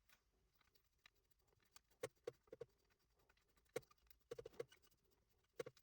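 Sparse light clicks and taps of small 3D-printed plastic parts being handled, as a tensioner knob holding an M3 nut is screwed onto a threaded rod. The clicks come in small groups, about two seconds in, near four seconds in, and once near the end.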